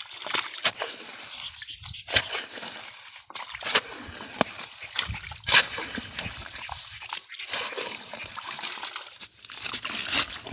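Muddy water in a hole sloshing and splashing irregularly as hands grope in it for catfish, with sharp splashes every second or so.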